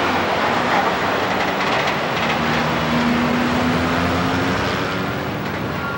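City street traffic noise: a steady rush of passing vehicles, with one vehicle's low engine note held through the middle.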